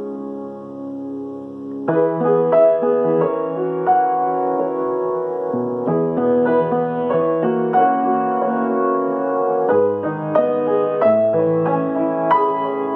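Solo piano improvisation. A held chord fades for the first two seconds, then fresh chords are struck with a slow melody line moving above them, a new chord every few seconds.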